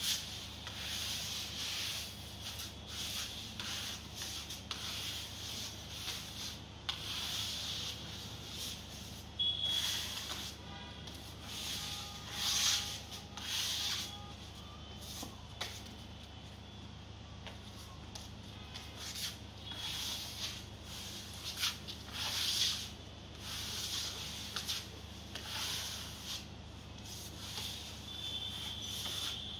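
Hand trowels scraping and rubbing wet screeding skim coat across a rendered wall, in irregular repeated strokes.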